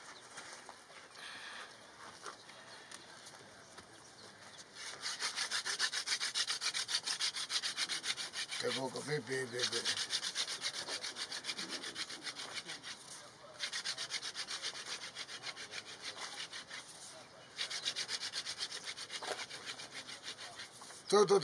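Wooden hand drill spun between the palms into a wooden hearth board to make fire by friction: a fast, even rasping of wood rubbing on wood. It starts about five seconds in and goes in several stretches with short pauses.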